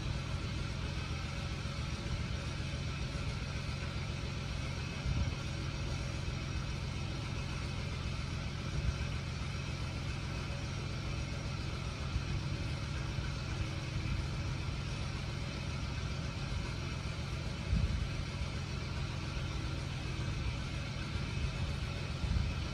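Steady low, engine-like mechanical hum in the background, with a few soft knocks scattered through it.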